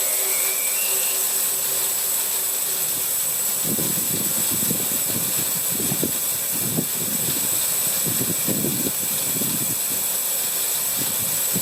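Homemade bandsaw sawmill running empty on a dry run: a steady hiss and whir from the motor, wheels and blade, with a constant high whine. Irregular low rumbling comes in from about three and a half seconds.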